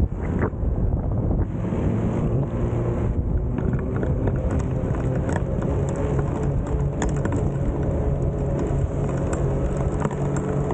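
Snowmobile engine running steadily while riding, over a rushing noise of wind on the microphone and scattered ticks and clicks.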